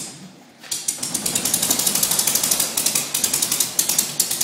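The small piston engine of a Mignet HM.14 Flying Flea catches about a second in and runs with a rapid, uneven crackle of firing pulses, turning its propeller, on its first start in years.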